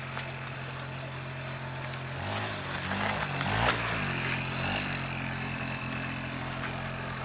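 Small petrol engine of a homemade mini bike running steadily, its revs dipping and rising a few times about midway before settling back to an even note.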